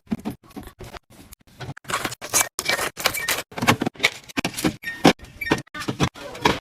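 Items being handled and set down while a fridge is stocked: a quick, uneven run of clacks, clicks and rustles, about two to four knocks a second.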